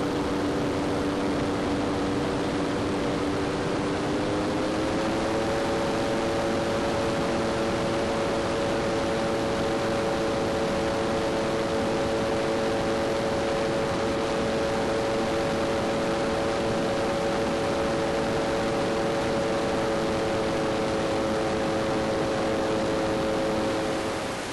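Ultralight trike's engine and propeller running steadily in flight under heavy wind rush on a camera mounted on the control bar. The engine note steps up in pitch about four to five seconds in, then holds steady.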